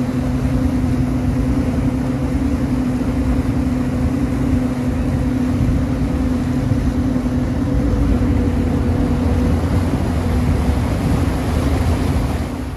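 Car ferry's engine running with a steady low hum, over the constant rush of water churned up in its wake.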